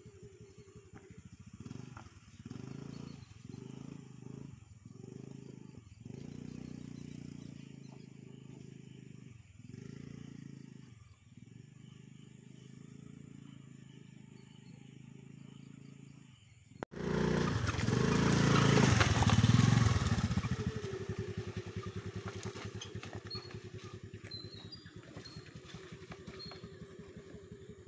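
A low, muffled rumble, then more than halfway through a Honda Dio scooter's engine comes in suddenly and loud, revs hard for a few seconds on a grassy dirt trail, and settles to a steadier drone. Birds chirp faintly near the end.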